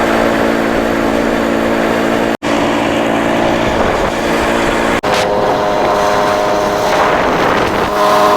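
A vehicle's engine and road noise, a loud steady drone heard from on board. It comes as three short stretches joined with brief dropouts.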